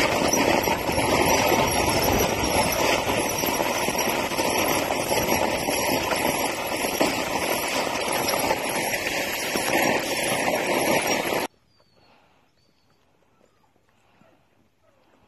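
Steady rough rolling noise of a dog-drawn kart's wheels on a frozen dirt road behind a running husky team, which cuts off abruptly about eleven seconds in.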